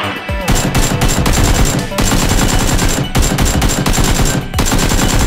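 Automatic gunfire sound effect: rapid machine-gun shots in several long bursts broken by brief pauses.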